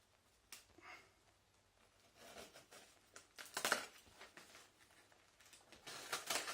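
Cardboard parcel being opened by hand: intermittent rustling, scraping and tearing of box and packing material, loudest about three and a half seconds in and again near the end.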